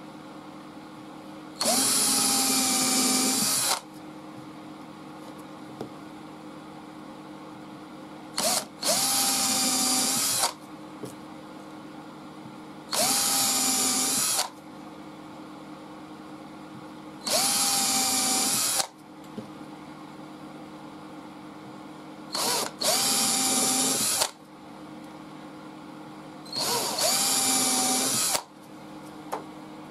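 Cordless drill with a 1.5 mm bit drilling small starter holes through a paper pattern into a pine board, for the inside cuts of a scroll-saw piece. It runs in six short bursts, each spinning up and lasting under two seconds, with a steady low hum in the pauses.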